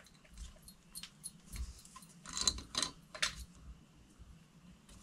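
Light clicks and rattles of pliers, wires and plastic twist-on wire nuts being handled while the fixture's leads are spliced, with a few sharper clicks in the middle.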